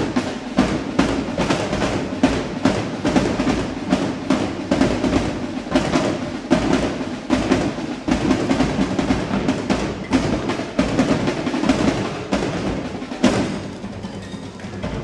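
A drill-team drum line playing a fast, dense cadence on snare and bass drums. A sharp loud hit comes near the end, after which the drumming drops quieter.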